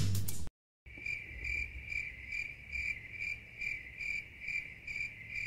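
Music cuts off about half a second in. After a brief silence a cricket starts chirping steadily, about three chirps a second.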